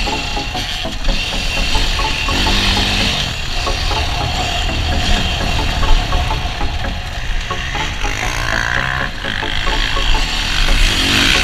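KTM 350 EXC-F dirt bike's four-stroke single-cylinder engine running under changing throttle, its revs rising and falling, heard from a camera on the rider with wind noise over it.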